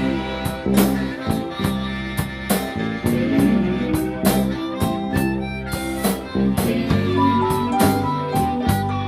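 Blues band playing an instrumental break: a harmonica over a steady drum-kit beat.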